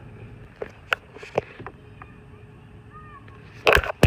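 A few light clicks and taps, then two loud bursts of rustling handling noise near the end.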